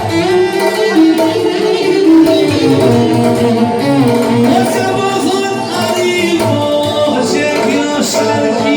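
Tallava band music playing: a wavering, ornamented melodic lead over a steady rhythmic accompaniment.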